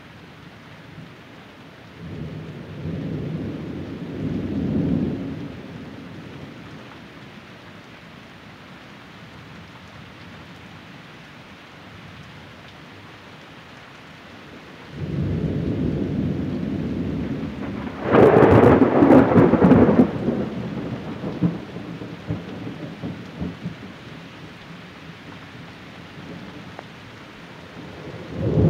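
Thunder over steady rain. A rumble rolls in about two seconds in. A louder peal builds from about fifteen seconds and peaks a few seconds later in sharp cracks before rolling away. Another rumble begins at the very end.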